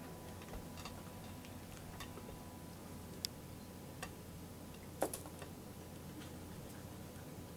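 Faint scattered clicks and taps over a steady low hum, with a sharper click a little past three seconds and the loudest one about five seconds in.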